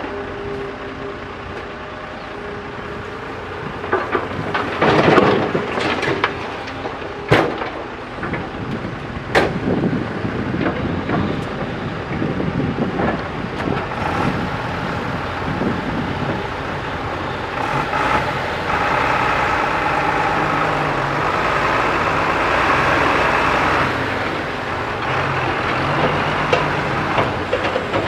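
Heavy diesel engine running steadily, with several sharp knocks and clanks a few seconds in. The engine works harder for several seconds about two-thirds of the way through.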